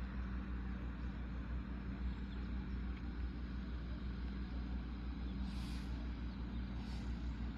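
A steady low engine hum from running machinery, with two brief hisses near the end.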